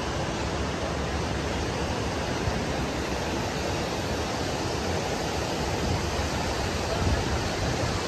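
Steady rushing noise of surf breaking along a sandy shore.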